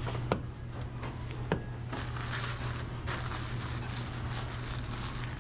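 Restaurant kitchen ambience: a steady low hum of kitchen equipment, with two sharp clacks about a second apart near the start, like utensils or dishes striking, and faint clatter after.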